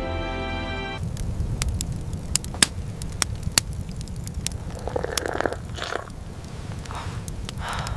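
Background music stops about a second in, giving way to a steady low rumble with irregular sharp crackles and crunches and a few brief rushing bursts.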